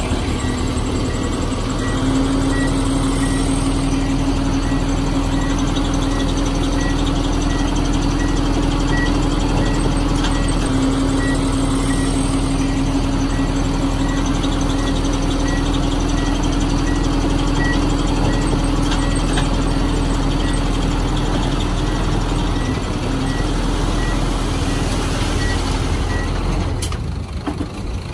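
Komatsu bulldozer's diesel engine running steadily while its reverse alarm beeps at an even pace, a little under two beeps a second, signalling that the dozer is backing up. The beeping stops and the engine sound dips near the end.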